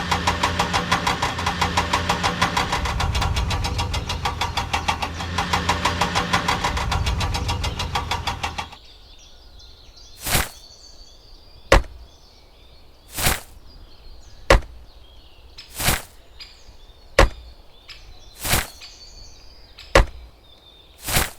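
An engine running with a fast, even knocking pulse, which cuts off suddenly about eight and a half seconds in. After it come single sharp chopping knocks, about one every 1.3 seconds.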